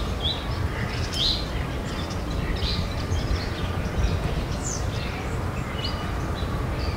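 Bird ambience: several birds giving short, scattered chirps and calls over a steady low rumble of background noise.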